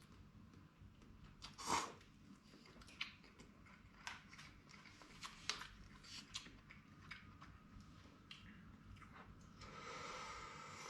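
Faint close-up chewing and mouth smacks from a person eating instant noodles, with scattered small clicks, the loudest about two seconds in, and a short hissing noise near the end.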